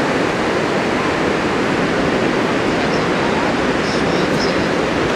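Ocean surf breaking, a steady, even wash of noise.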